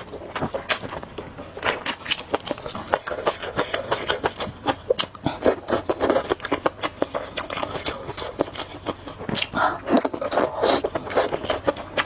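Close-miked eating of spicy noodles: an irregular, dense run of quick wet clicks and smacks from chewing and slurping.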